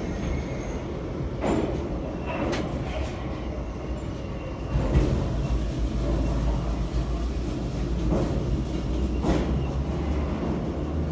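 Em-series (81-501/502/503) metro car running through a tunnel, heard from inside the car: a steady low rumble of wheels and running gear. A few short, sharp knocks come from the track, the loudest about five seconds in.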